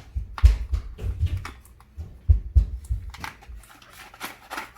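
Handling noise from unpacking a toy RC car's box contents: packaging rustling and crinkling, with irregular dull knocks clustered in the first second and a half and again from about two to three seconds.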